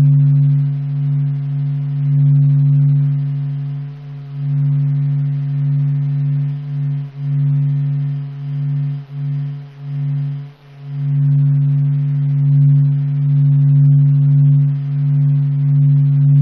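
Sonification of the Sun's surface vibrations recorded by the SOHO solar observatory, 40 days of data sped up 42,000 times into audible sound. It is a steady low hum that swells and fades, dipping several times in the middle before steadying again.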